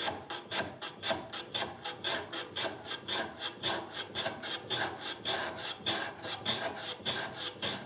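Metal bench plane being pushed in quick, short, repeated strokes across the end grain of a softwood board, each stroke a dry scraping shave.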